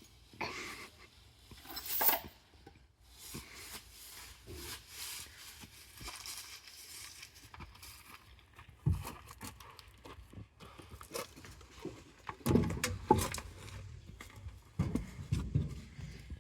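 Hand-tool work on a lawn mower: irregular knocks, clinks and rustling, with louder thumps about nine seconds in and again from about twelve seconds on.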